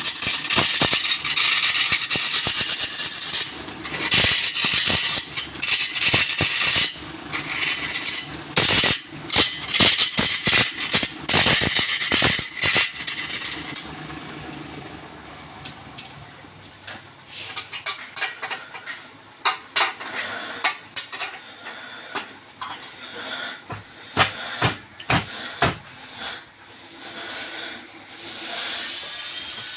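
Woodturning workshop sounds: long, loud hissing cutting passes, stopping and starting, for the first half. These give way to quieter, scattered clicks and knocks, like tools being handled and set down.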